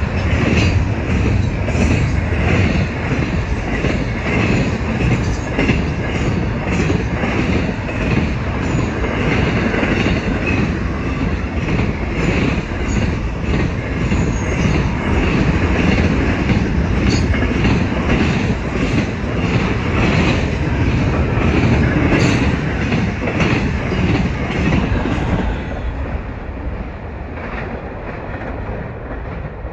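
Double-stack intermodal container train rolling past close by: a steady heavy rumble with wheels clacking over the rail joints again and again. About 26 seconds in the last car goes by and the sound drops to a fading rumble as the train moves away.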